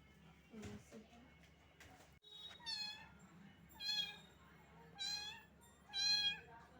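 A small kitten meowing: four short, high-pitched meows about a second apart, starting a little under three seconds in.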